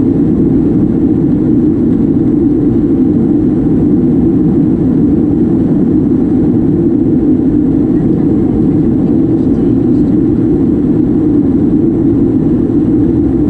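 Airliner taking off and climbing out: a loud, steady roar of jet engines and rushing air, as heard from inside the cabin, with no change in pitch or level.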